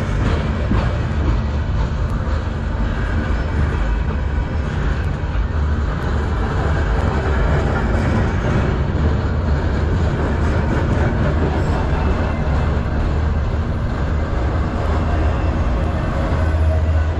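Freight train's boxcars and autorack cars rolling past close by: a steady rumble and rattle of steel wheels on the rails.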